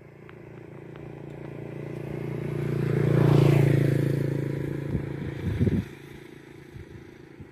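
A motor vehicle passes on the road, its engine and tyres growing louder to a peak about three and a half seconds in, then fading. A few knocks come just before it dies away.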